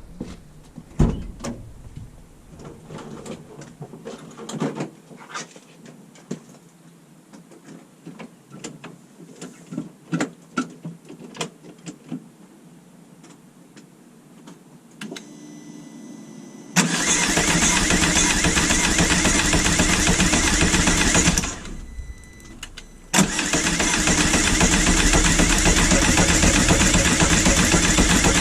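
Scattered light clicks and knocks, then a loud steady mechanical running noise starts suddenly, cuts out for a second or two and starts again.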